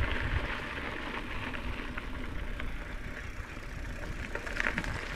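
Vehicle engine running steadily at low speed, a low rumble, with faint scattered ticks above it.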